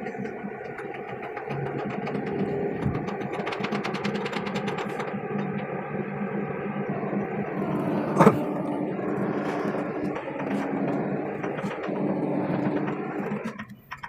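Hydraulic excavator's diesel engine running steadily, heard from inside the operator's cab, with one sharp knock about eight seconds in. The sound dips out briefly just before the end.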